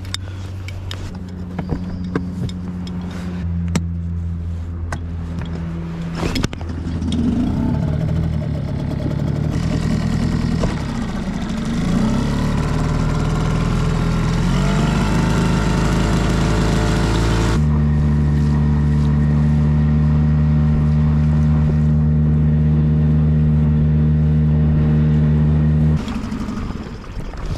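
Small Yamaha outboard motor running, pushing an inflatable boat along. Its engine note holds steady, jumps to new pitches at a few abrupt breaks, wavers up and down in the middle stretch, and falls away near the end.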